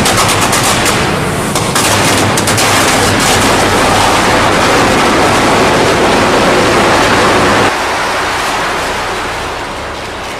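Electric arc furnace melting scrap steel: a loud, dense crackling roar with sharp cracks and bangs, thickest in the first couple of seconds, over a steady low electrical hum. After about eight seconds the hum drops away and the roar slowly eases.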